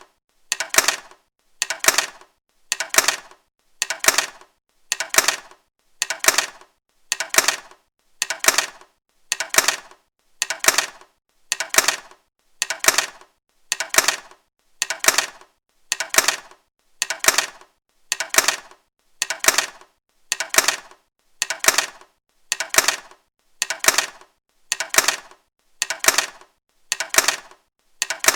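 A pair of eyeglasses set down on a laptop, over and over: each one a short, light clatter of the frames on the laptop's surface, repeated about once a second.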